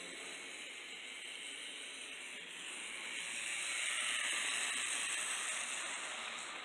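N scale model locomotive running along the track: a steady whirring hiss from its motor and wheels on the rails. The sound swells from about three seconds in, is loudest around four seconds, then fades.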